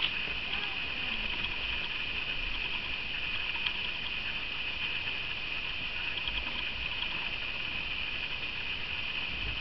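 A steady high hiss, with faint light ticks and rustles of Bengal kittens' claws catching on a hanging mesh toy net.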